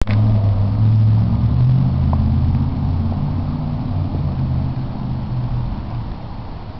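2003 Chevrolet Avalanche's V8 engine running at idle with the hood open, a low steady hum that is loudest in the first couple of seconds and then eases off.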